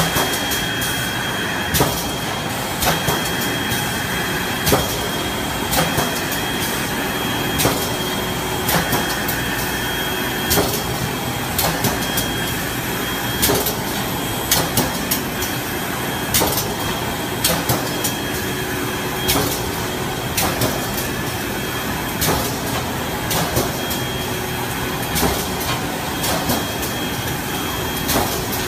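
PE liner inserting, cutting and sewing machine for PP woven sacks running in production, a steady mechanical din with a constant high whine. Sharp clacks come about once a second as the mechanism cycles.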